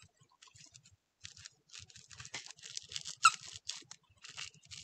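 Plush dog toy with crinkle material being squeezed in the hands, giving irregular crinkly rustling, with one short squeak from its squeaker about three seconds in.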